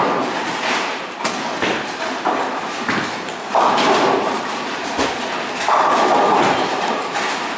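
Bowling alley lane noise: bowling balls thudding onto the lanes and rolling, with the knocks and clatter of pins and ball-return machinery, a string of irregular thuds and clicks over a rumbling background.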